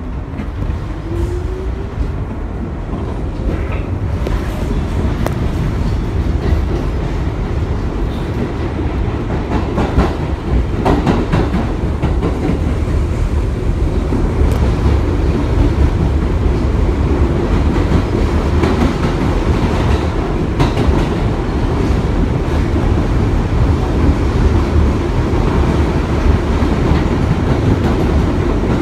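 Bombardier-built R62A subway car accelerating out of a station, heard from inside: a rising motor whine over the first few seconds, then steady wheel and track rumble with clicks, growing louder over the first fifteen seconds as the train gathers speed.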